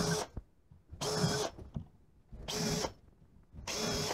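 Cordless drill run in short bursts, boring small holes into a white-coated panel: four brief runs of the motor about one and a half seconds apart, with quiet between.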